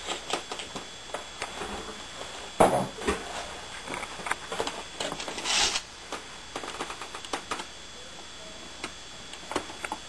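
Scattered light clicks and knocks of kitchen items being handled on a countertop, with one louder knock about two and a half seconds in and a brief rustling hiss a little past the middle.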